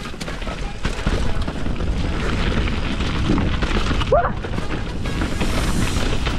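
Mountain bike riding fast down a muddy forest trail: wind rushing over the camera microphone, tyres rolling over mud and leaves, and the bike rattling over bumps. A brief rising squeal about four seconds in.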